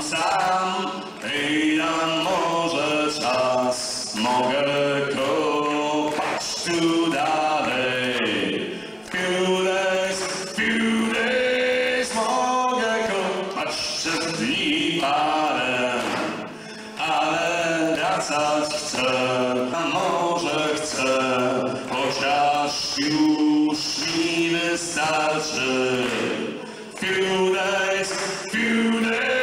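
A man singing a song, accompanying himself on an acoustic guitar, amplified through a stage PA.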